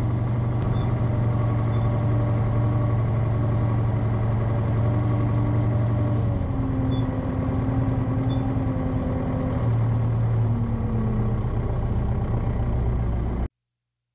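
Deutz-Fahr DX 4.70 tractor's air-cooled diesel engine running steadily at low revs, its pitch shifting slightly a few times. It cuts off abruptly near the end.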